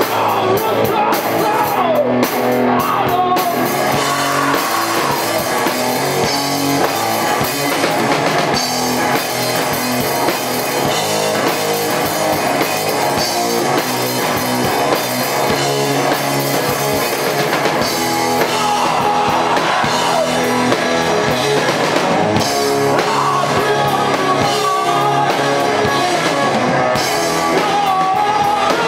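A rock band playing live, with drum kit and electric guitar, and a voice singing over it near the start and again in the second half.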